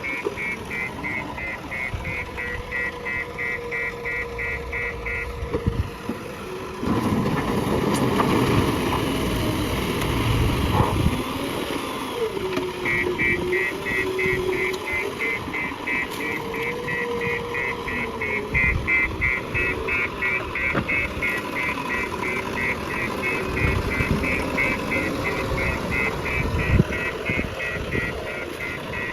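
JCB backhoe loader's diesel engine running while working, growing louder for a few seconds about a quarter of the way in. A rapid, evenly repeated high beeping sounds over it for the first few seconds and again through most of the second half.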